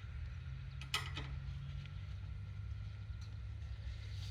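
Steady low hum with a single sharp click about a second in, as hand tools work a hooked linkage and its E-clip under a riding mower.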